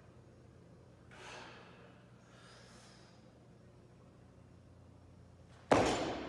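A weightlifter's two sharp breaths, then near the end a single loud, heavy thud, like a loaded barbell landing on the platform, that rings out for about a second.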